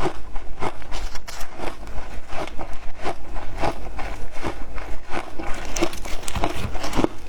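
Frozen matcha ice being chewed: a steady run of hard, crackling crunches, about two a second.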